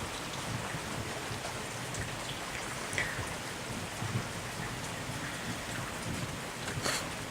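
Steady rain falling, with thunder rumbling low underneath.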